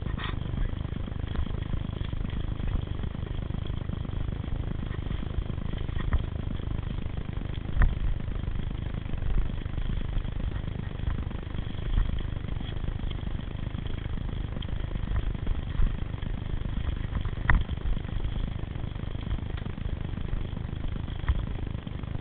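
Steady low rumble of wind and riding noise on a camera carried down a rocky mountain-bike singletrack. A handful of sharp knocks are scattered through, from the bike jolting over rocks and roots.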